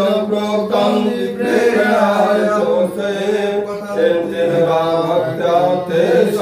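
A man's voice chanting Sanskrit mantras for a Rudrabhishek to Shiva, a steady, near-monotone recitation in phrases with short breaks for breath.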